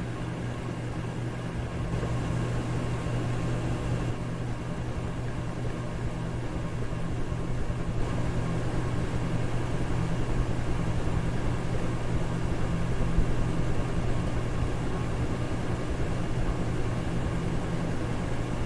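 Electric fan running steadily: an even rushing noise over a low motor hum, growing slightly louder over the first few seconds.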